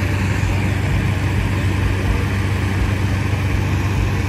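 Hot air balloon inflator fan running steadily, blowing cold air into the envelope lying on the ground: a small engine's low, even hum under a rush of air, at the cold-inflation stage before the burner is lit.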